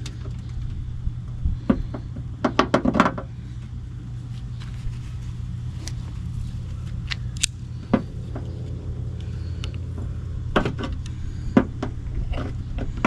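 Scattered clicks and knocks of hands and tools working at the antenna mount under a truck's hood, with a quick run of clicks about three seconds in, over a steady low rumble.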